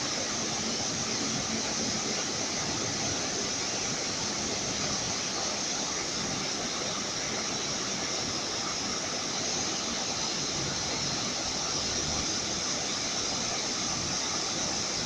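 Steady rush of fast-flowing water tumbling over rocks, an even, unbroken roar with a bright hissing top.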